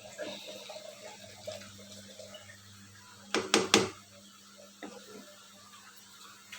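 Sweet potato pieces frying in hot oil, giving a faint steady sizzle, with three quick knocks close together about three and a half seconds in.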